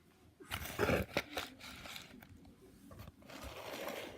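Objects being handled and moved about, with scraping and rustling and a few sharp clicks about a second in, then fainter rustling.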